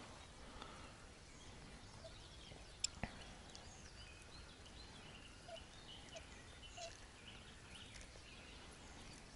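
Near silence: faint outdoor background with one sharp click about three seconds in.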